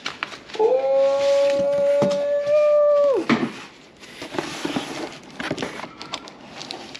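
A dog howls once, a single long steady note of about two and a half seconds that drops off at the end. Afterwards comes light rustling and tapping of cardboard and plastic wrap being handled.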